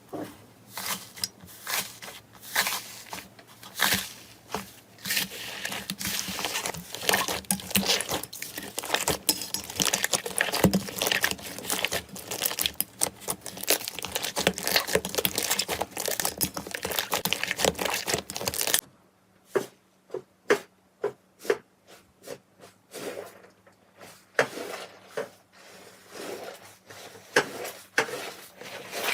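Slime being squeezed and worked by hand, a dense run of crackles and sticky pops; about two-thirds through it cuts to a quieter stretch of separate pops and clicks.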